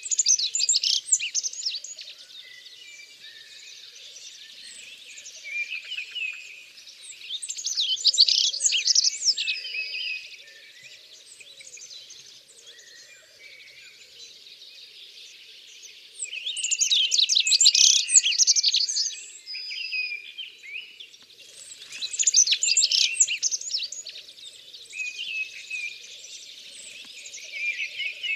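Yellowhammer and rock bunting song: phrases of quick, high, repeated notes coming every few seconds, some phrases much louder than others.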